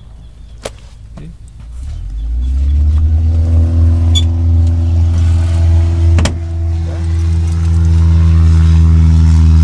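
An engine starts up about two seconds in; its note rises briefly, then settles into a steady, loud running. There is a single sharp knock a little past six seconds in.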